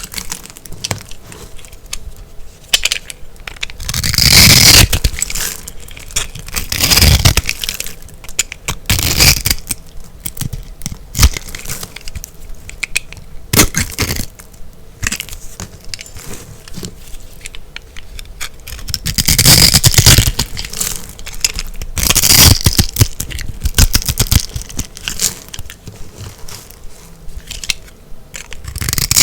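Crunchy dried soap being crushed and cut: repeated crackling crunches, louder bursts about a second long every few seconds, with sharp single cracks between them.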